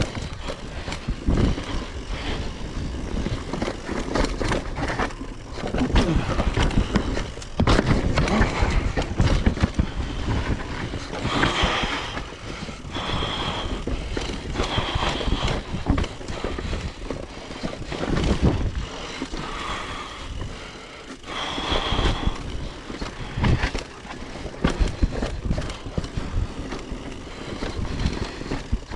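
Downhill mountain bike ridden fast over a rough dirt trail: tyres on dirt, with the bike rattling and knocking over bumps. A few short, high-pitched squeals come through about halfway and again later.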